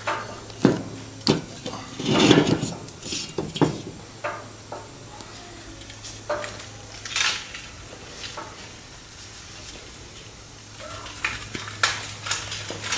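Scattered metal clinks, knocks and scrapes as a valve and tools are handled on a Volkswagen cylinder head during valve lapping, with cloth rubbing as the valve and seat are wiped clear of lapping paste. The handling is busiest in the first few seconds and again near the end, over a faint steady low hum.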